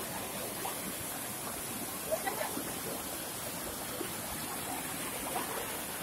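Small stream of water rushing steadily down a narrow rock channel, a constant running-water hiss.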